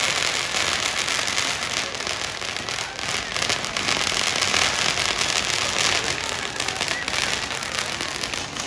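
Ground fountain fireworks spraying sparks, giving a steady, dense crackling hiss with no single loud bang.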